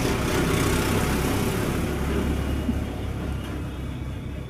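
Tractor engine running as it drives past close by, then fading as it moves away.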